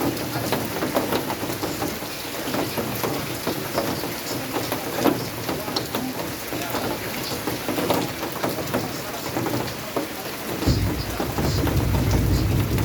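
Steady rain falling, with many separate drops striking close by. About ten and a half seconds in, a deep low rumble sets in and continues under the rain.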